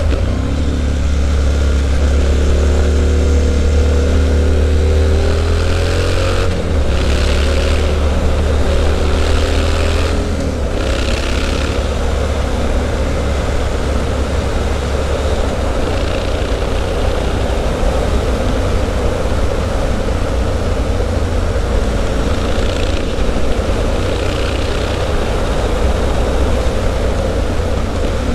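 Triumph Street Scrambler's 900 cc parallel-twin engine running through a Zard aftermarket exhaust while the bike is ridden. Its pitch rises as it pulls for the first several seconds, changes about six to seven seconds in, and then runs more steadily under wind and road noise.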